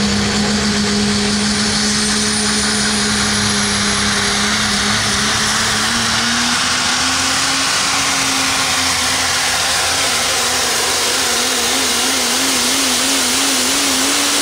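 Super stock diesel pulling truck's turbocharged diesel engine at full power making a pull, with a dense high hiss over the engine note. The note holds steady, climbs about six seconds in, and wavers rapidly up and down near the end.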